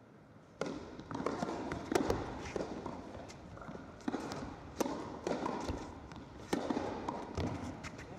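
Tennis ball sounds in a large indoor hall: sharp single pops of the ball being bounced and struck by racket strings, each followed by a short echo, at uneven intervals through a serve and the start of a rally. The sound comes in abruptly about half a second in.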